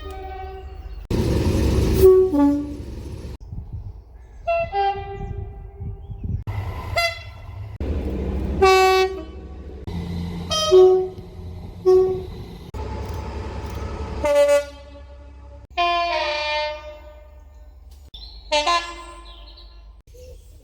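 Train horns sounded in a run of short separate recordings, one after another: single blasts and two-tone soundings that step from one note to another. The loudest, about two seconds in, sounds over the noise of a passing train.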